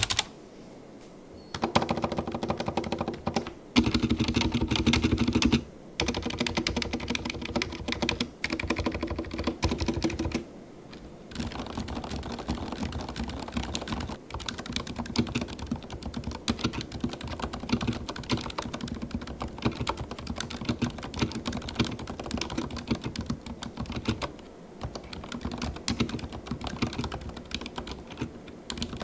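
Typing on a Leopold FC900RBT MX2A full-size mechanical keyboard with silent red (dampened linear) switches: muted, fast keystrokes. There are louder runs with short pauses in the first ten seconds, then steady continuous typing at a lower level.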